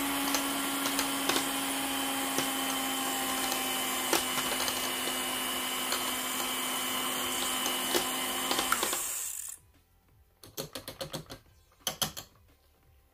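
Electric hand mixer running steadily, its beaters whisking thickening lotion in a plastic jug with occasional clicks against the sides. It switches off about nine and a half seconds in, followed by a few sharp clicks and knocks as the beaters are lifted out of the jug.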